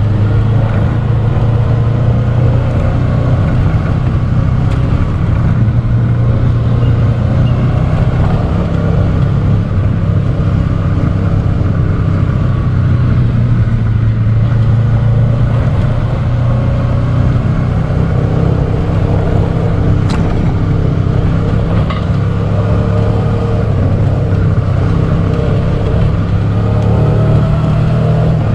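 Motorcycle engine running steadily under way, its pitch drifting slightly up and down with the throttle.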